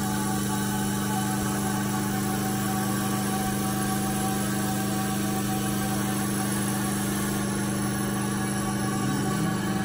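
Homemade CO2 laser cutter running while its head cuts acrylic sheet: a steady machine hum with several held tones. Near the end a brief rising and falling whine as the gantry moves the head.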